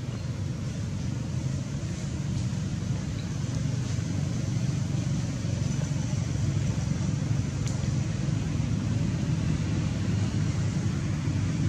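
Steady low outdoor rumble with a faint hiss over it, with no distinct event standing out.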